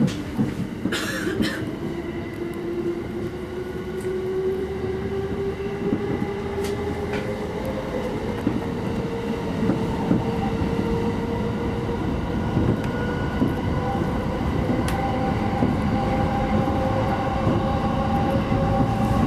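Electric commuter train heard from the front cab, its traction motors whining with a pitch that rises slowly as the train gathers speed, over a steady rumble of wheels on track with a few sharp clicks.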